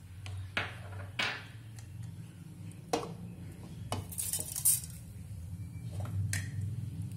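Metal kitchen utensils clinking and knocking against a pan and other vessels, about six separate sharp clinks with a brief hiss just after the middle, over a low steady hum.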